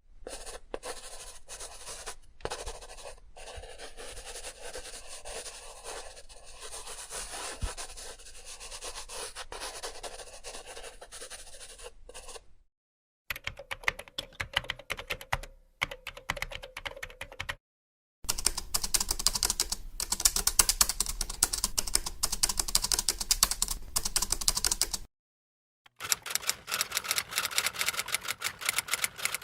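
A sequence of sound effects. First, about twelve seconds of handwriting, with a continuous scratchy stroking sound. Then two separate runs of rapid keyboard typing clicks, and near the end the clacking keys of a typewriter.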